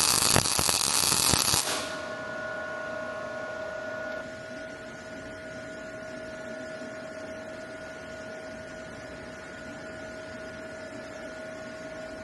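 A loud steady hiss, typical of a MIG welding arc, for the first second and a half or so, cutting off suddenly. After it, a faint steady electrical hum with one clear mid-pitched tone.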